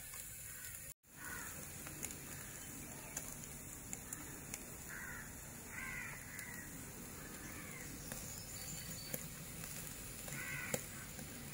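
An animal calling several times in short arched calls, over a faint steady background. The sound drops out completely for a moment about a second in.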